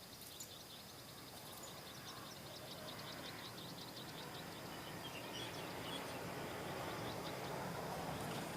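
Outdoor ambience: a small animal's rapid high chirping, about seven ticks a second, fades out about three seconds in, while a soft rushing noise grows louder toward the end.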